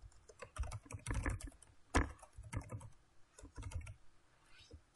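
Typing on a computer keyboard: irregular key clicks in short quick bursts.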